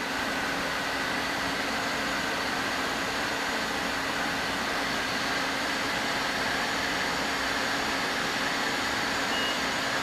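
Robinair A/C recovery-and-recharge machine charging refrigerant into a running car A/C system, a steady hissing drone as the high-side pressure rises. A short high beep sounds near the end.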